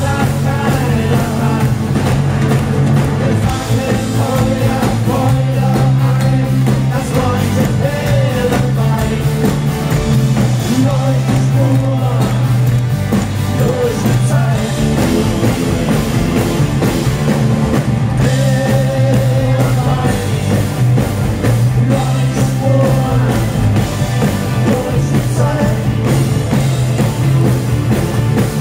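Live rock band playing loud, with electric guitars, bass, drums and keyboards, and a voice singing a melody over them.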